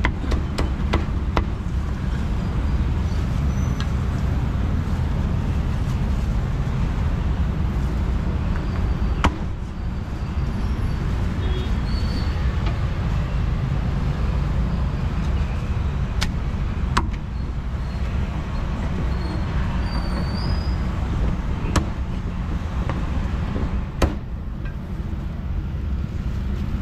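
Steady low traffic rumble from the street, with a handful of sharp cleaver chops on a wooden chopping block: a few close together at the start, then single chops several seconds apart.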